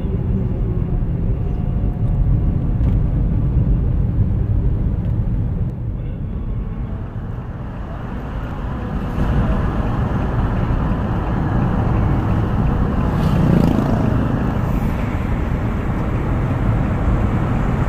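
Car driving, heard from inside the cabin: a steady low rumble of engine and road noise that dips briefly about six seconds in.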